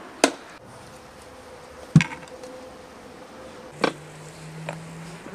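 Metal serving spoon clinking sharply against the pot and ceramic bowl while roasted liver is scooped out, about four separate knocks, with a fly buzzing steadily in the background.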